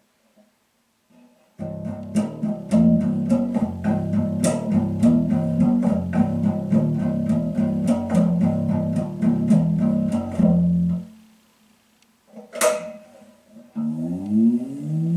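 Homemade fretless electric bass built from an ammo case, played through a Fender amp. About a second and a half in it starts a quick run of plucked notes that ends on a held note. After a pause comes one sharp, bright pluck, then notes sliding up and down in pitch near the end, as the fretless neck allows.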